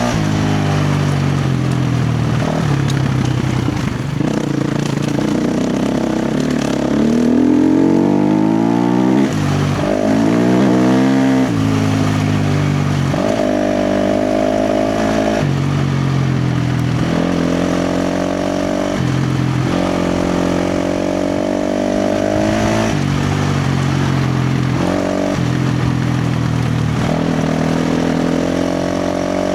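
KTM 350 XC-F dirt bike's single-cylinder four-stroke engine under hard riding. The pitch climbs in rising sweeps, then holds steady for a second or two at a time, broken by short drops as the throttle is rolled off and back on.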